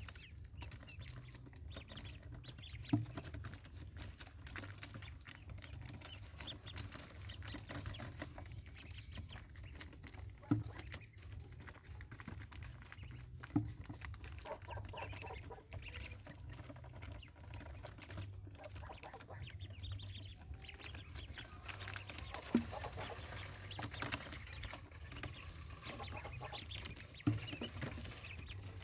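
A brood of ducklings calling now and then in short peeps, over a steady patter of small clicks from their feet and beaks on a plastic mesh floor and water dishes. Five sharper knocks stand out at intervals.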